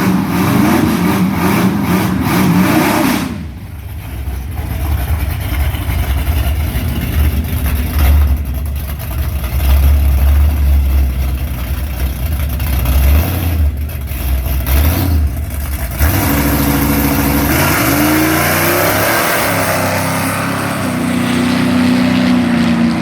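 Car engine during a drag strip pass: revving at first, then about twelve seconds of loud low rumble with gusts of wind on the microphone, then the engine note rising and falling near the end.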